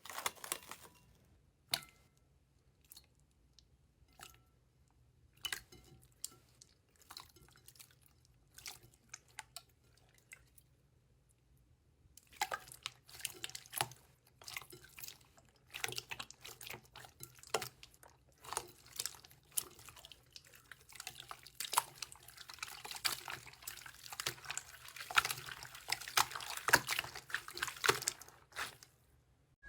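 Slime being squeezed and poked, making wet clicks and pops: scattered at first, then from about twelve seconds in a dense, continuous run of sticky crackling.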